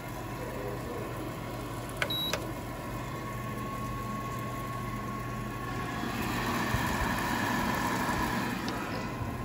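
Emeril Lagasse Power Air Fryer 360 XL running on air fry at 400°F: a steady fan hum with a low and a mid-pitched tone in it. A short high beep sounds about two seconds in, and the rush of the fan grows louder about six seconds in.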